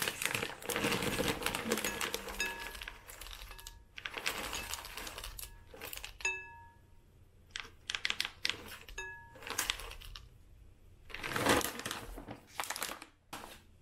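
Dry granola ingredients such as oats, nuts and seeds being poured and handled in kitchen containers: clusters of rattling and clicking, broken by pauses. A few short pitched notes sound among them.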